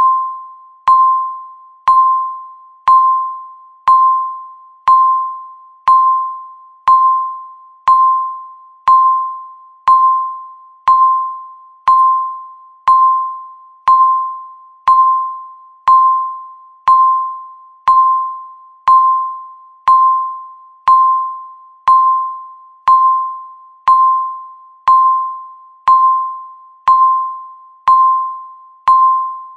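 Countdown timer's electronic beep sounding once every second, each a single clear tone that starts sharply and fades away, the seconds ticking down.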